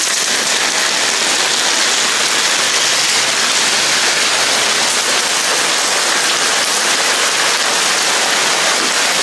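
Heavy rain falling steadily on the street and pavement and on an umbrella held overhead, an even hiss with no letup.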